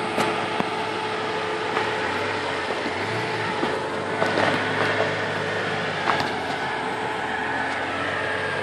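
Lifted Jeep Cherokee XJ crawling slowly over rock and gravel, its engine running steadily at low revs with a steady tone over it. A few short sharp knocks and crunches from the tyres on stone.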